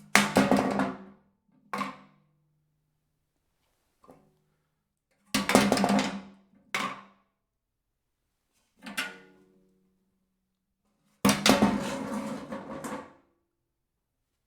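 A series of impacts on a filled metal trash can. Three heavy crashes, at the start, about five seconds in and about eleven seconds in, each ring on with a metallic tone for a second or two, with smaller knocks between them.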